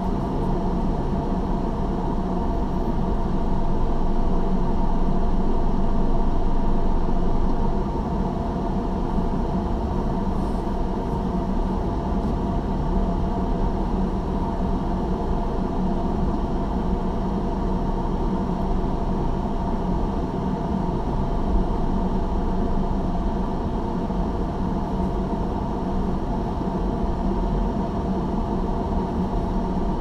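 Steady hum and low rumble of a car's engine and tyres, heard from inside the cabin while driving slowly. It is a little louder from about four to eight seconds in, then drops back suddenly.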